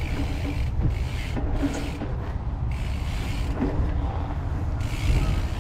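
A mountain bike ridden fast along a paved path: a steady low wind rumble on the microphone mixed with tyre noise.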